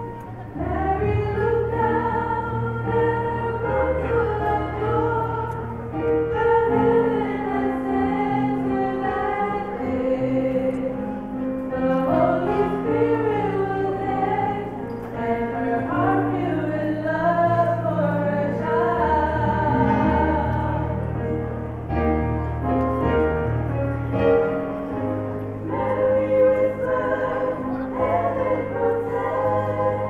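A small group of women singing a song together in harmony, heard live in a hall, over an accompaniment of held low bass notes that change every second or two.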